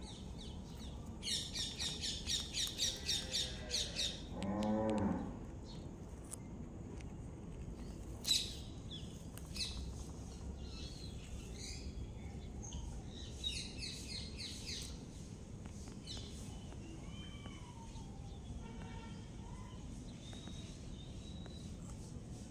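Outdoor ambience: a bird gives a quick run of high, repeated calls, about five a second, for some three seconds. It is followed by a low, pitched animal call about a second long, the loudest sound, which has the pitch and length of a cow's moo. Scattered light clicks and a few faint chirps come later over a steady background hiss.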